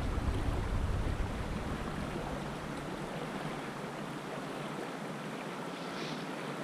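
Steady rush of a small creek's flowing water, with low wind buffeting on the microphone that fades out over the first couple of seconds.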